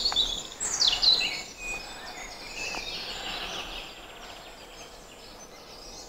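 Woodland songbirds singing: whistled phrases, one sliding down in pitch about a second in, then fainter trills over a steady background hiss.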